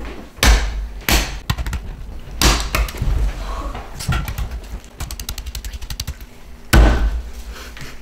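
Hands slapping eggs down onto a wooden tabletop: several heavy thumps, the loudest near the end, with eggshells breaking. A run of small quick clicks comes between the later thumps.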